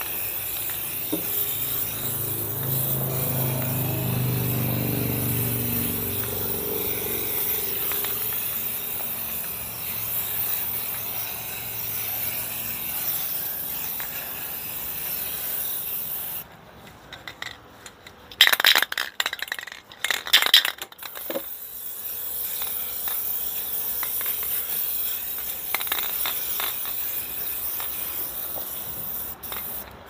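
Aerosol can of black spray paint hissing as it sprays, the can nearly empty. About halfway the spraying stops, and for a few seconds there are sharp, loud rattling clatters as the can is shaken. Then the uneven hiss of spraying resumes.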